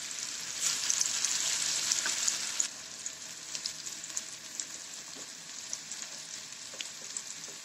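Chopped onion, garlic and green chilies frying in oil in a wok, sizzling with scattered crackles and pops. The sizzle is louder for the first two and a half seconds, then settles to a lower, steady level.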